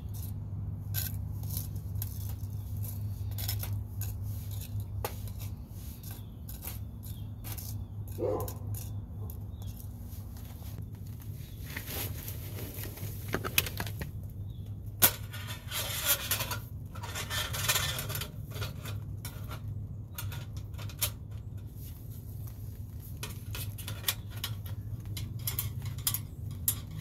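Scattered light metallic clicks, clinks and scrapes as a folding stainless steel stove and a small metal tool are handled and worked at the stove's perforated side panel, with a few longer scraping stretches around the middle, over a steady low hum.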